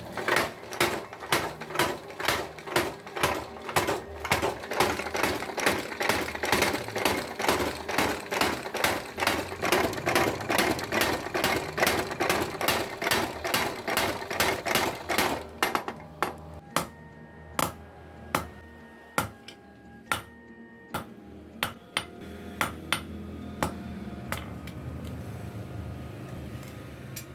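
Hand hammer blows on steel over an anvil, forging a sickle blade: a steady run of about two to three strikes a second, then after about fifteen seconds slower, spaced blows that ring clearly.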